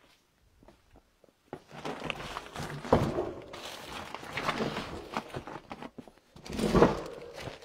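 Footsteps and knocking, starting about a second and a half in, with two louder thuds about three seconds in and near the end.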